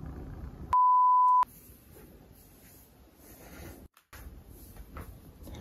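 A single steady, high-pitched bleep tone, under a second long, about a second in, edited into the soundtrack with the other sound muted beneath it; faint room sound before and after.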